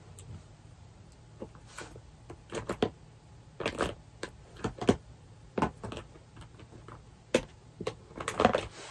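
Plastic slime containers clicking and knocking against each other as they are rummaged through, with irregular rustling.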